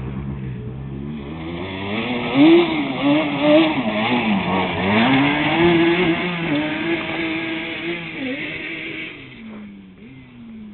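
Yamaha Banshee quad's twin-cylinder two-stroke engine revving up and down several times as it pulls away under throttle. It fades as the quad moves off into the distance near the end.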